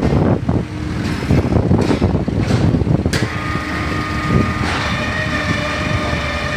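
Concrete block and kerbstone making machine running loudly, with irregular clattering and knocking as its pallet conveyor carries the freshly moulded kerbstones out. A sharp click comes about three seconds in, after which a steady hum with several tones sets in.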